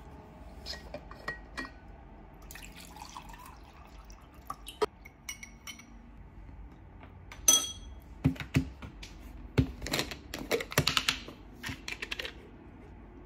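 Clinks of a glass straw against a ceramic mug, with one loud ringing clink about halfway through. This is followed by a quick run of clicks and knocks as a plastic supplement bottle is picked up and handled.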